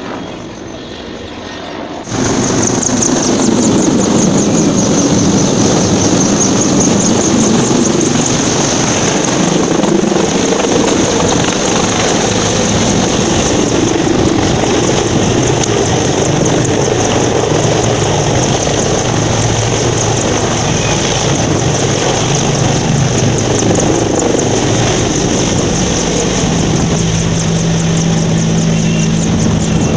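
A Mi-8/Mi-17-type military helicopter flying low nearby: loud, steady rotor noise with a high turbine whine. It jumps suddenly louder about two seconds in.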